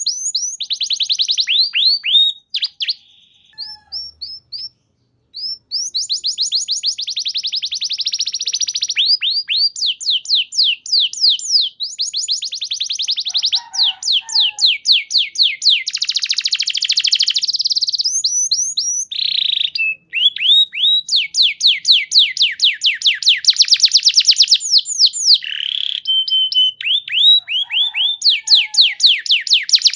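Domestic canary singing: long rolling trills of fast, repeated downward-sliding notes, with a sparser stretch of separate notes about three to five seconds in and a brief break near twenty seconds.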